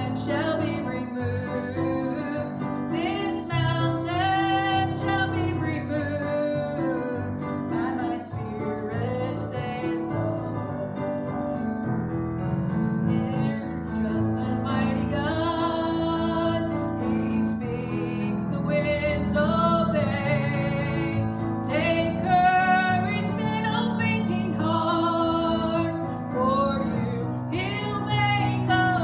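A woman singing a sacred song with piano accompaniment, her voice wavering on held notes.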